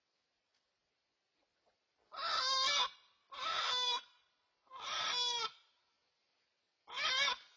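Chicken squawking in alarm during a raccoon attack: four loud, harsh squawks, each under a second long, the last after a longer pause.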